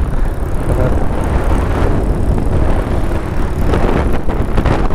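A motorcycle riding along at road speed, heard as a steady, dense rumble of wind buffeting the helmet-mounted microphone over engine and road noise.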